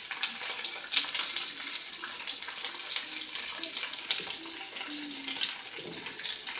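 Sliced onions sizzling in a hot electric wok: a steady frying hiss with many small crackles.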